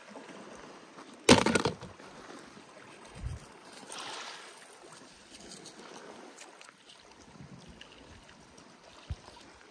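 Small waves washing on a pebble beach, with stones crunching as a hand digs in the gravel. A brief loud rush comes about a second in.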